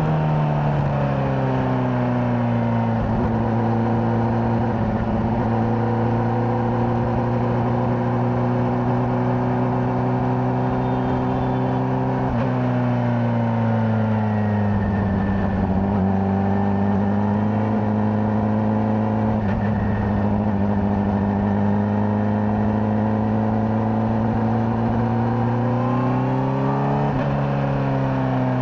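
Honda CBR600RR's inline-four engine on its stock exhaust, running at steady cruising revs. The engine note falls off at the start, dips and comes back up about halfway, and near the end rises then drops, as on a gear change.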